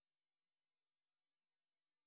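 Silence: the soundtrack is essentially empty, with only a faint steady hiss.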